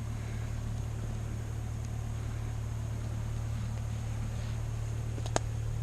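Excavator's diesel engine idling steadily, a constant low hum, with one sharp click a little past five seconds in.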